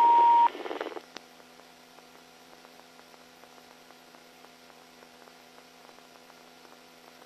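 Police two-way radio: a short, loud, steady beep over a hiss of static, the static cutting off about a second in. After that, only a faint steady hum with faint ticking.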